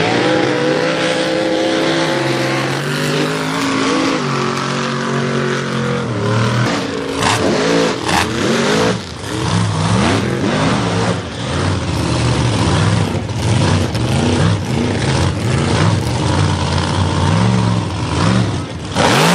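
Mega mud truck's engine revving up and down hard, its pitch rising and falling over and over, with tyres churning through mud.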